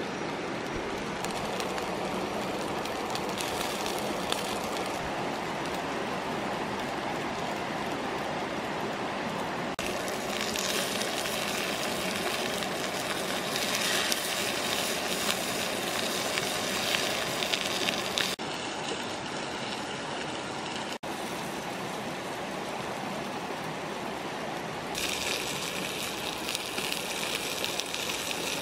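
Steady rush of a shallow rocky stream. In stretches a brighter, higher hiss joins it: snake pieces sizzling on a hot pan over a wood fire. This hiss starts and stops abruptly about ten seconds in, and comes back near the end.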